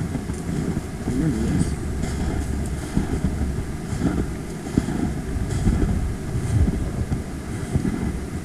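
Wind buffeting the microphone: a gusty low rumble that swells and fades.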